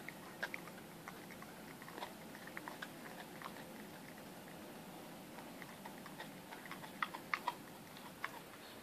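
An Appenzeller–Stabyhoun mix dog chewing a raw shank from a young goat, with scattered sharp crunching clicks of teeth on meat and soft bone. The loudest group of crunches comes about seven seconds in.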